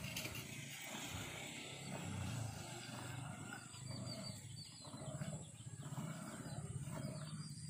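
A cow being milked by hand, milk squirting in short repeated streams into a plastic can, over a low, rough rumble.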